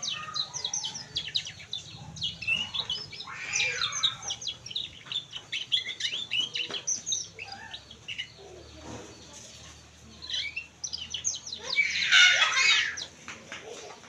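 Canary singing: a string of rapid chirps and trills, with a louder, denser burst of song about twelve seconds in.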